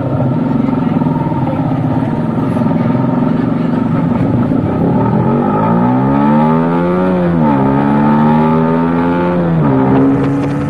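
Yamaha R15 motorcycle's 155 cc single-cylinder engine accelerating on the road. After a loud rushing noise at first, its pitch climbs from about halfway, drops at a gear change, climbs again and drops at a second shift near the end.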